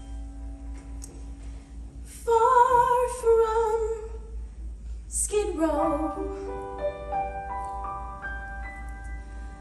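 Theatre pit accompaniment for a musical number: a held keyboard chord, then a woman's voice singing a long note with vibrato about two seconds in, then keyboard notes climbing upward one after another.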